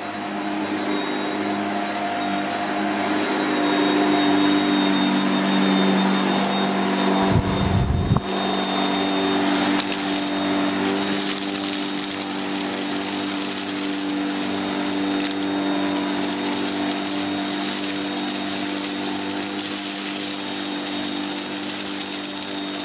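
Shark Powered Lift Away NV681UKT bagless upright vacuum running at full suction with its motorised floor head, sucking up rice and couscous from a carpet: a steady hum and hiss. A brief low bump comes about seven seconds in.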